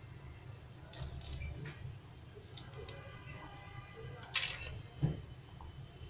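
Several light clicks and taps of a kitchen knife and raw onion rings against a plastic cutting board as the rings are pried apart and moved, over a steady low hum.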